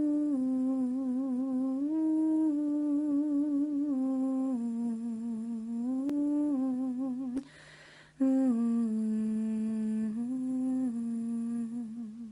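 A woman humming a slow melody with vibrato, moving in steps between long held notes. She pauses for a breath about seven seconds in, then hums on.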